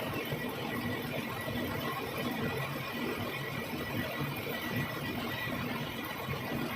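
Metal lathe running steadily: a constant machine hum with a faint high whine.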